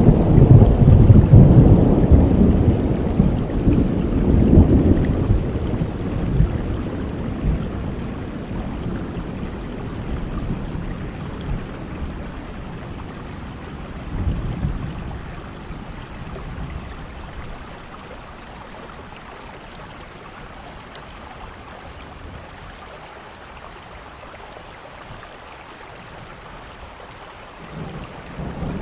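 Steady rain with rolling thunder: a loud low rumble at the start that dies away over several seconds, a shorter rumble about halfway through, and another starting near the end.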